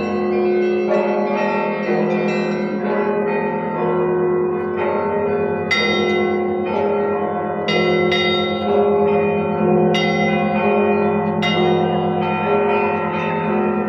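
Church bells ringing a long peal: several bells of different pitches are struck in turn, about once a second, each note ringing on under the next.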